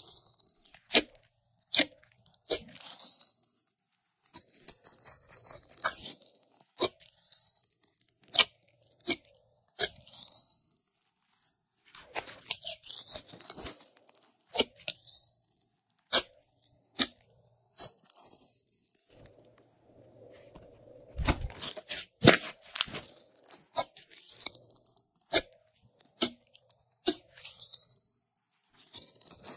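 Hands squeezing and stretching glossy slime mixed with small foam beads: sticky crackling and many sharp clicking pops, in irregular bursts.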